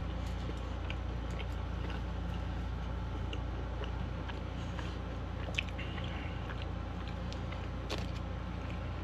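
Close-up chewing of a Crunchwrap with Cheez-It crackers inside: scattered small wet mouth clicks and light crunches, one sharper click about halfway through, over a steady low hum.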